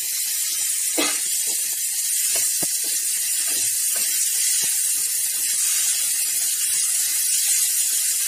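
A spatula stirring and scraping crumbled paneer and bottle-gourd stuffing around a nonstick pan, with irregular scrapes and taps over a steady sizzling hiss of the mixture cooking in oil. The sharpest scrape comes about a second in.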